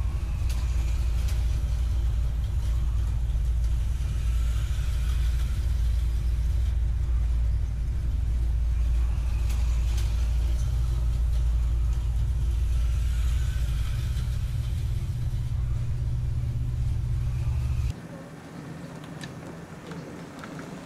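HO-scale model trains and slot cars running on a layout: a loud, steady low rumble, with motor whines that rise and fall every few seconds as cars pass. About 18 seconds in the sound drops to a quieter rolling of an HO model diesel locomotive along the track, with light clicking.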